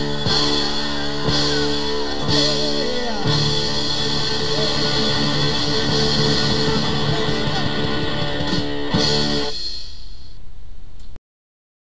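Rock music with electric guitar, held chords with sliding guitar notes and a drum hit about once a second. The music ends about nine and a half seconds in, a faint hiss follows, and then the sound cuts off to silence near the end.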